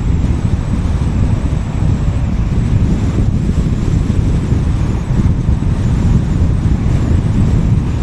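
Steady road and wind noise from a car driving along a highway: a dense, even low rumble with no distinct events.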